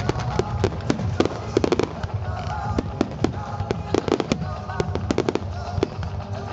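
Aerial fireworks bursting in a rapid, continuous barrage of sharp bangs, several a second, over background music.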